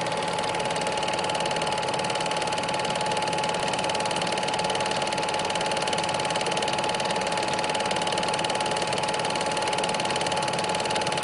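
A small machine running steadily with a fast, even clatter and a steady high whine over it.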